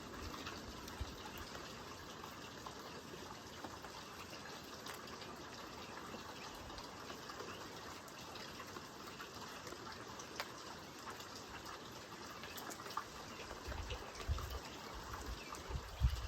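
Steady rain falling, a constant hiss with scattered drip taps, and a few low thumps near the end.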